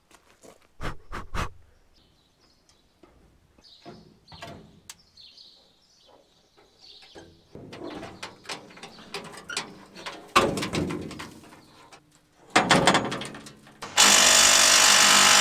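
Knocks and clatters of tools and metal parts on the back of a combine harvester while bolts and shields are worked loose, with birds chirping in between. A loud, steady rushing noise starts about a second and a half before the end and runs on.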